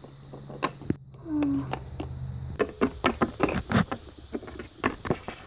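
Small plastic toy figures handled and set into a plastic toy bed on a wooden tabletop: scattered light clicks and knocks, thickest in the middle, with a brief low hum about a second and a half in.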